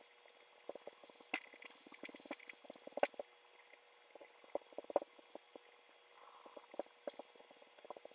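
A sponge loaded with wet acrylic paint dabbed rapidly onto paper: quick runs of soft, wet pats with short pauses between them.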